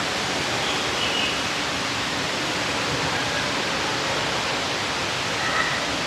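Steady rushing of an indoor aviary waterfall. A couple of faint short bird calls sound over it, about a second in and near the end.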